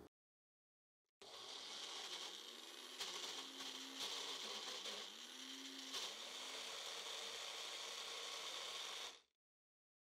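Magic Bullet blender motor running, blending frozen blueberries with sugar, cornstarch and water into a sauce. It starts about a second in, its pitch swoops up a few times, and it cuts off suddenly near the end.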